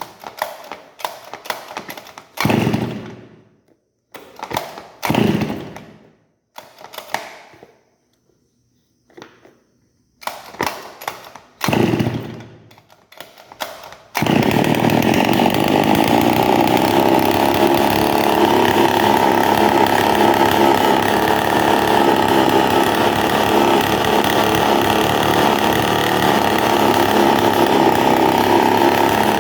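Two-stroke brushcutter being pull-started: several short pulls of the starter cord with falling sounds and gaps, and then about fourteen seconds in the engine catches and runs steadily and loudly. The running sound is abnormal because the exhaust bolts have worked loose, so the exhaust leaks out at the joint instead of going through the muffler.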